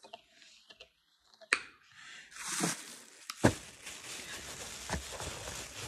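A thin plastic bag crinkling and rustling as it is handled, starting about two seconds in, with a few sharp knocks.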